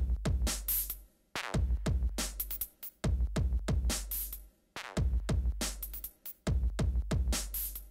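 Electronic background music: a drum-machine beat over a deep bass line, breaking off briefly about every second and a half.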